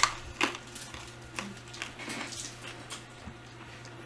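Scattered short clicks and rustles from a person eating a candy and shifting about, over a steady low hum.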